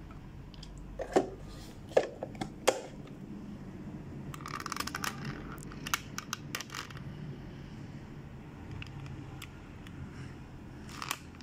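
Sharp plastic clicks and knocks of an electric blender's jar being handled and fitted onto its base, the motor not running: four loud knocks in the first three seconds, a flurry of lighter clicks and rustling a little after the middle, and a couple more clicks near the end.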